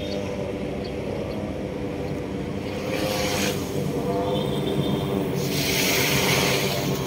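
A steady engine drone with several pitched lines, with a short burst of hiss about three seconds in and a longer one near the end.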